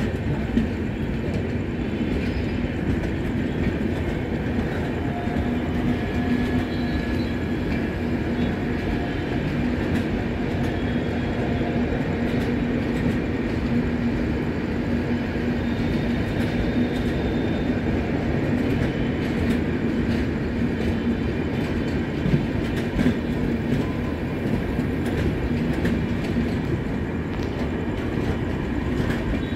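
Indian Railways passenger coaches rolling past on the track: a steady rumble of wheels on rail with a low hum throughout and a couple of sharp knocks about three-quarters of the way through.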